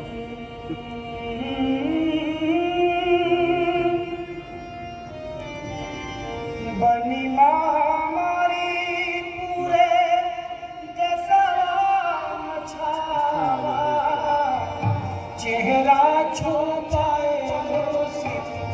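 A song: a voice singing long, drawn-out notes that waver in pitch, over musical accompaniment.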